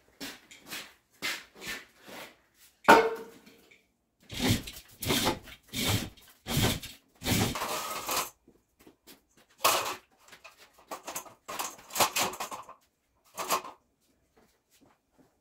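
Metal clanking and rattling as a Jeep axle on its wheels is chained to an engine hoist, lifted and set down on metal stands. One loud ringing clank comes about three seconds in, then a quick run of knocks, and more clanks follow later.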